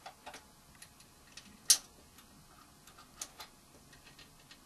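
Small irregular metallic clicks and ticks from a key turning the barrel screws of a violin's side-fitting chin rest clamp to unscrew it, with one sharper click about a second and a half in.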